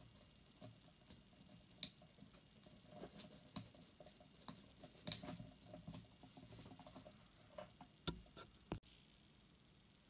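Faint, scattered small clicks, ticks and rubbing from fingers working the plastic angled housing of a 13-pin GK connector off its metal barrel, with a few sharper clicks.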